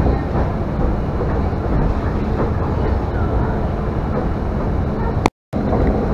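Steady running noise inside a commuter electric train car: a low rumble of wheels on rail and car noise. About five seconds in it cuts out briefly with a click, then resumes.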